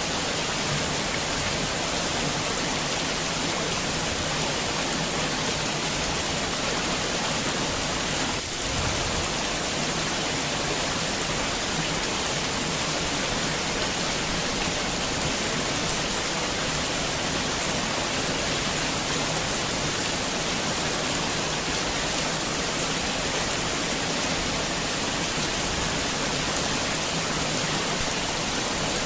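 Heavy rain falling steadily, an even dense hiss of drops on surfaces, with a brief dip in level about eight seconds in.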